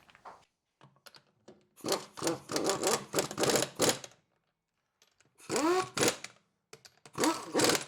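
Impact wrench spinning on wheel nuts in three bursts: a long one about two seconds in, then two shorter ones. Each is a rapid hammering rattle with a whine that rises and falls as the trigger is pulled and let go.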